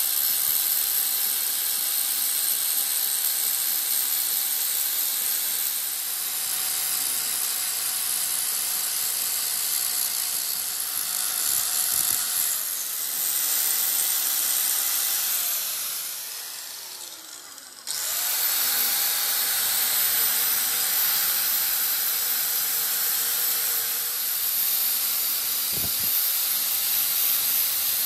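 Electric angle grinder with an abrasive disc grinding the welded-up tooth of a steel pinion gear, a steady high motor whine with the hiss of disc on metal. About two-thirds of the way through it winds down, then starts up again and rises back to full speed.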